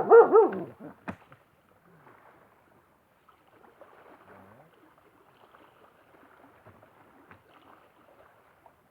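A short, loud call from a voice right at the start, with a sharp click just after, then faint lapping of small lake waves on the shore.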